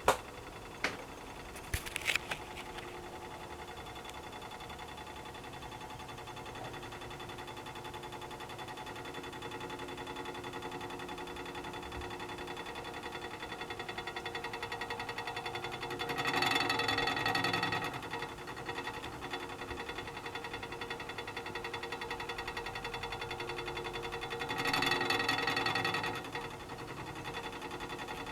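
Hot water tank rattling and buzzing steadily as it heats up, with two louder surges lasting a couple of seconds each, and a few sharp clicks near the start. The cause of the noise is unknown.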